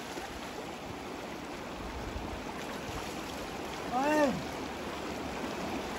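Shallow river water flowing over stones, with splashes as a man wades in and throws the water over himself by hand. About four seconds in, a single short vocal cry rises and falls.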